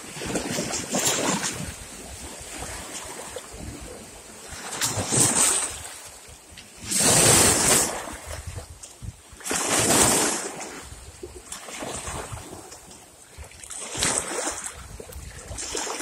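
Small waves splashing against shoreline rocks and the legs of a metal folding chair standing in the water. The splashes come in irregular surges every few seconds, the two loudest a little past halfway.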